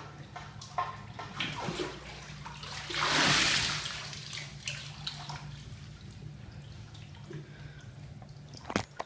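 Bathwater sloshing and splashing as a person moves about in a filled bathtub, with one big splash about three seconds in and small drips and splashes around it. A sharp knock comes near the end.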